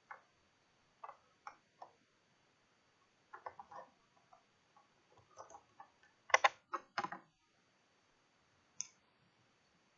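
Scattered light clicks and taps of small shipping containers and packing being handled and opened by hand, with the loudest cluster of clicks about six to seven seconds in.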